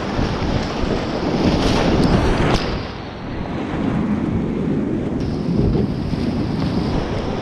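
Whitewater rapids rushing and churning loudly around a kayak, with water splashing onto and buffeting the microphone, heaviest a couple of seconds in.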